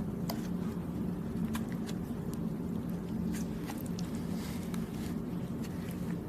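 Close-up chewing of soft, chewy Thai desserts: scattered short wet clicks and smacks of the mouth, over a steady low hum.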